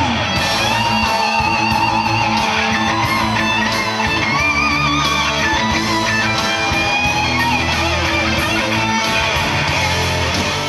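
A rock band playing, led by an electric guitar melody whose held notes waver with vibrato over bass and drums. It fades out near the end.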